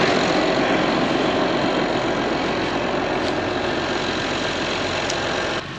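Large farm tractor engine running steadily under load, with a dense, even mechanical rush; it cuts off abruptly near the end.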